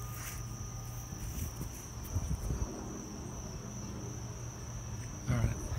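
Insects trilling in one steady, high-pitched tone, over low rumbling noise, with a brief louder scuff near the end.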